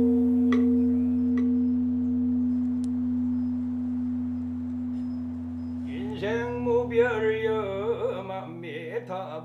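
A steady ringing tone with two sharp taps near the start. About six seconds in, a man's voice begins a slow Buddhist chant (beompae) with a long, wavering melodic line.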